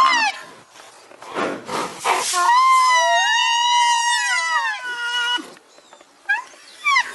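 Rhinoceros giving high, squealing, whistle-like calls: a falling call at the start, a breathy huff, then one long arching call of about three seconds, followed by short rising chirps near the end.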